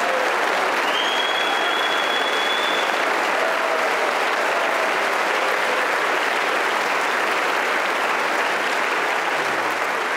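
Audience applauding steadily, with a high whistling tone held for about two seconds near the start.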